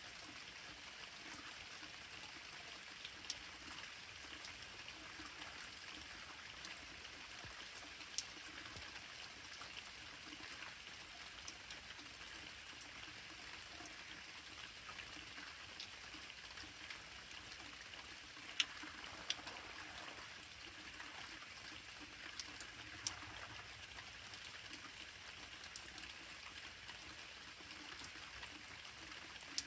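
Steady light rain falling, with a few sharp ticks of drops landing close by, the loudest a little past halfway.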